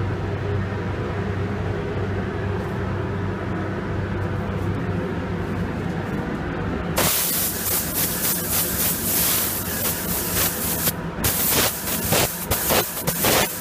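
Steady low machine hum; about seven seconds in, a paint spray gun starts hissing with compressed air, in uneven stop-start bursts as the trigger is worked over the panel while clear coat is blended.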